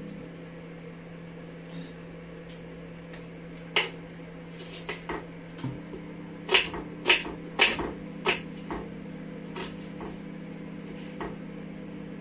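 Kitchen knife cutting an onion on a wooden chopping board: irregular sharp knocks of the blade on the board, starting about four seconds in and loudest in the middle. A steady low hum runs underneath.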